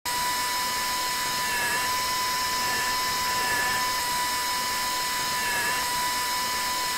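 Dental implant drill on a surgical handpiece, a 3.9 mm diameter drill, spinning as it cuts an implant site into a training jaw model. It makes a steady high whine that cuts in abruptly, with a slight dip in pitch about every two seconds as the drill takes load.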